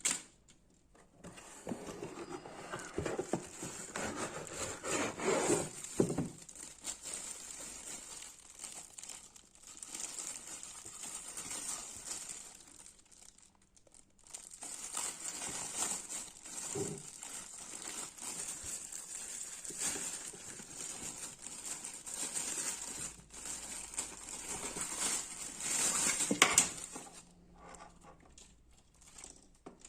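Packaging being handled and crumpled: irregular rustling, crinkling and small clicks, with a short pause about halfway through.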